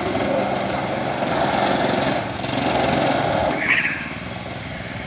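Small go-kart engine running as the kart drives along, quieter for the last second.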